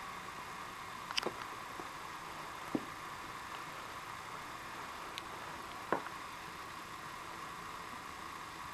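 Steady faint hiss with four short soft taps at uneven intervals, the sharpest about six seconds in, from a cat stirring and pawing at a cotton bud on carpet.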